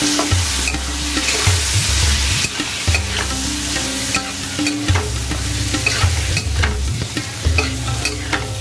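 Spoon stirring and scraping potatoes and chickpeas through frying masala in a kadhai, with a steady oil sizzle and frequent short clicks of the spoon against the pan.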